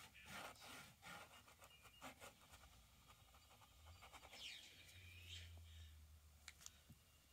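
Near silence with faint scratching of a thin paintbrush stroking oil paint onto canvas, and a faint low hum for about a second past the middle.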